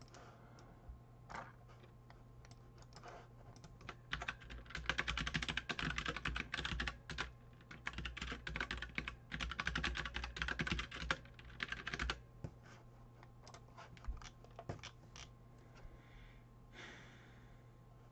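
Computer keyboard typing: a few scattered keystrokes, then quick continuous runs of typing for several seconds, thinning back to occasional clicks near the end. A low steady hum runs underneath.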